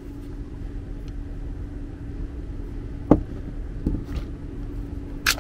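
Steady low hum and rumble of an HVAC system running after power-up, with a single sharp click about three seconds in.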